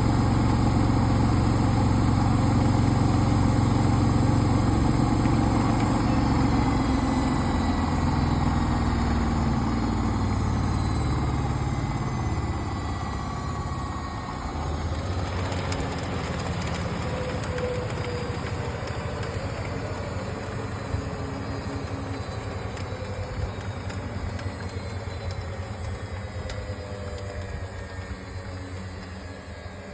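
Samsung washing machine spinning a load of wet towels: a loud, steady low hum for about the first ten seconds, then the drum slows, the sound fading gradually and the whine sliding down in pitch.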